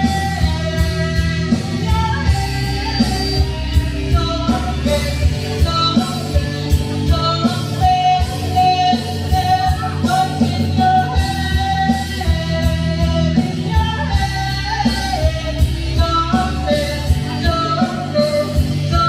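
Pop-rock song with a singing voice over guitar and a steady drum beat.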